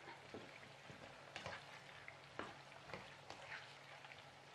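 Faint sizzle of sliced potatoes and onions frying in oil in a pan, with a few short scrapes and taps as a plastic slotted spatula stirs them.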